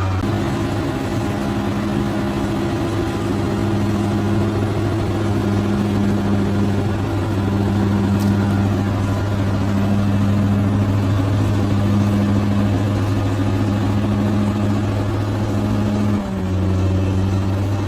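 Large bulldozer's diesel engine running steadily under work, with a deep, even hum. About 16 seconds in it briefly dips and settles a little lower.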